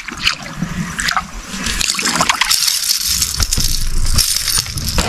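A hooked bass thrashing and splashing at the water's surface while being played toward the boat, in irregular bursts of splashing that grow busier about a second and a half in.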